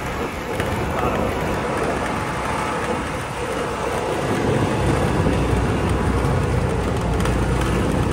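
A moving vehicle's engine running steadily under a continuous rushing noise, the low hum growing a little stronger about halfway through.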